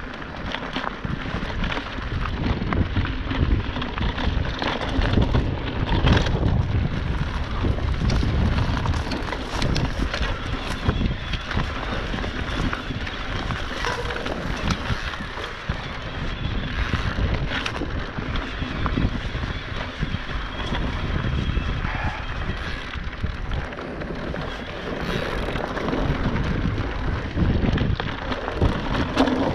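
Electric mountain bike riding a dry, stony dirt singletrack: steady wind rush over the microphone and the rumble of tyres on the trail, with frequent knocks and rattles from the bike over the bumps.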